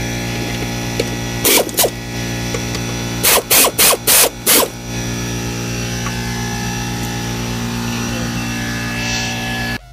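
Power ratchet running the mounting bolts of a new mower-deck mandrel assembly in short bursts: two about a second and a half in, then a quick run of about six a little later. A steady hum lies under it and cuts off suddenly just before the end.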